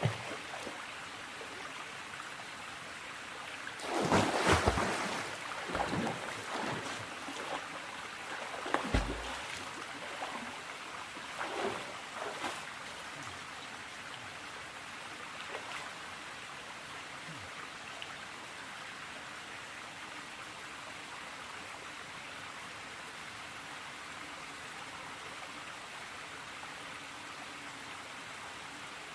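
Steady rushing of a stream, with several short splashes in the first half from someone getting into the cold, chest-deep water.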